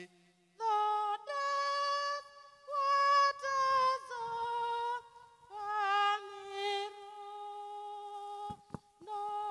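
A woman's solo voice singing a slow tune in long held notes, with short pauses between phrases. Two sharp clicks come near the end.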